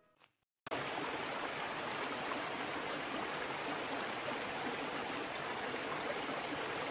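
Stream water rushing steadily over rocks. It starts abruptly about half a second in.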